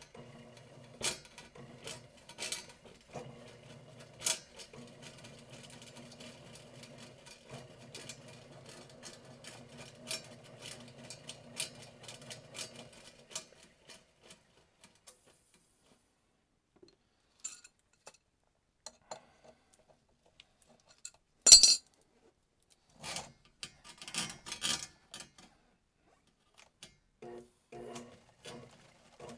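Electric drum-type power drain auger running, its steel snake cable clicking and clanking as it is fed into the drain line. The motor hum stops a little before halfway through, leaving scattered metallic clanks and rattles, with one loud clank about two-thirds of the way through.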